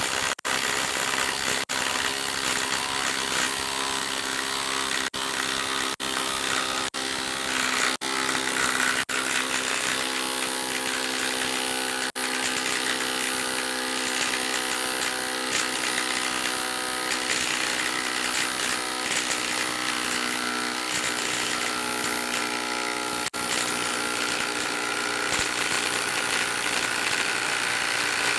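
Makita brushless impact driver on its top speed setting hammering continuously as it drives a large lag bolt into a log through a socket adapter. It is let off for an instant several times in the first half and once more about 23 seconds in.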